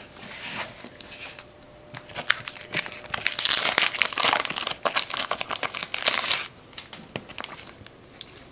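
Plastic wrapping crinkling and crackling as trading cards are handled, loudest through the middle stretch of a few seconds.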